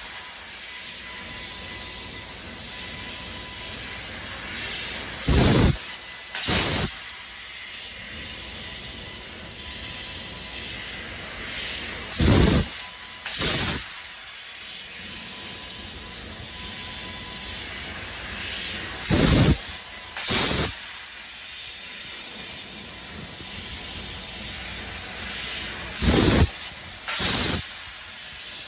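CNC fiber laser cutting machine running: a steady hiss, broken about every seven seconds by a pair of loud, short rushing blasts, repeating in a regular cycle.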